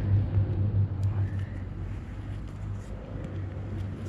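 A steady low engine-like hum, loudest in the first second and then easing off, with a few faint clicks of hands working a test plug into the end of a PVC pipe.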